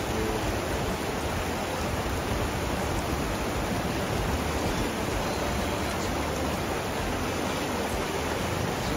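Fast, shallow mountain stream rushing over stones: a steady, unbroken noise of moving water.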